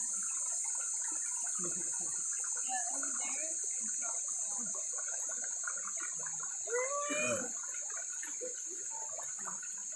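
Shallow creek water running and babbling over rocks, with a steady high hiss and faint distant voices. A brief, louder voice-like call sounds about seven seconds in.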